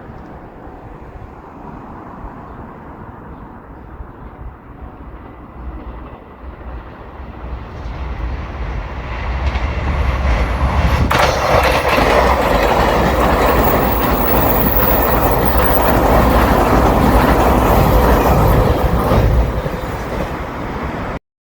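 A JR Shikoku 8000 series electric limited express train approaching and passing close by at speed on the rails. It builds over several seconds, stays loud for about eight seconds as the cars go by, eases, then cuts off suddenly near the end.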